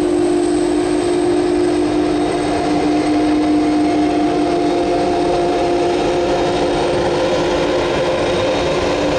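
Boeing 747-400F jet engines running loud and steady, a dense rumble with a strong whine that slowly drops a little in pitch.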